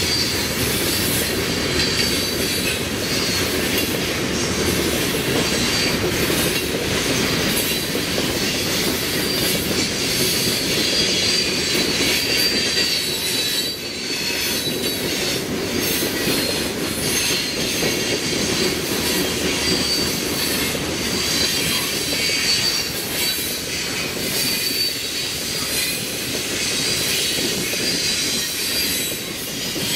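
Loaded coal hopper cars rolling steadily past on the rails, a continuous rumble of wheels and cars, with a thin high wheel squeal against the rail that comes and goes.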